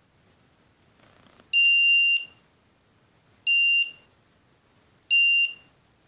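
Berryclip board's buzzer sounding Morse code for the letter B: a high steady beep held for over half a second (the dash), then two short beeps (dots), spaced more than a second apart.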